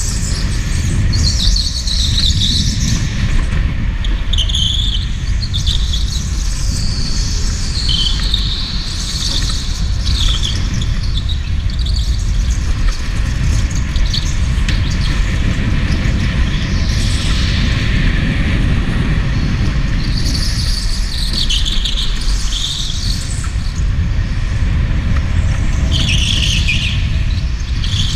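Electric go-kart at speed, heard from on board: a steady low rumble as it runs over the concrete, with the tyres squealing in short spells, several times, as the kart slides through the corners.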